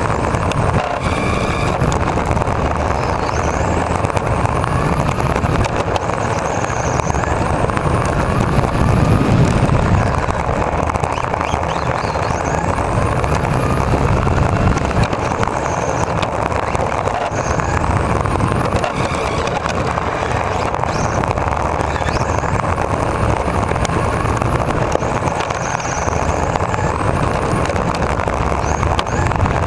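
Onboard sound of a 1/10 RC touring car driven by a Novak 13.5-turn brushless motor: a high-pitched motor whine that rises and falls every few seconds as the throttle is worked, over steady low road noise from the tyres running on block paving.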